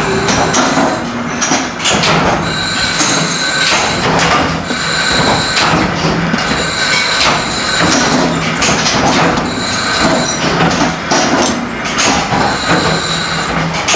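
Workshop metalworking machinery running loud and continuous: a harsh metallic grind with steady high ringing tones that come and go, and frequent short clatters.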